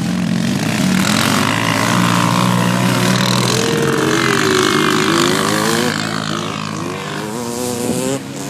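Off-road vehicle engines, a side-by-side UTV and quad ATVs, running on sand dunes and revving, the pitch rising and falling several times.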